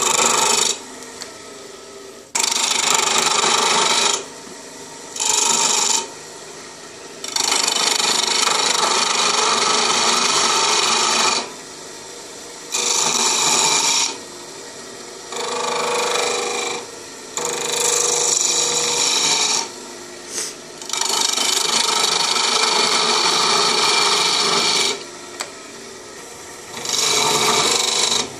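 A turning tool cutting a spinning spindle of pale wood on a wood lathe: a loud, hissing, shaving sound that comes in repeated passes of one to four seconds, dropping back to a quieter running sound between cuts.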